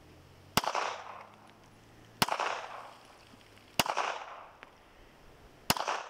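Four single shots from a semi-automatic pistol, fired slowly about one and a half to two seconds apart, each followed by a short echo.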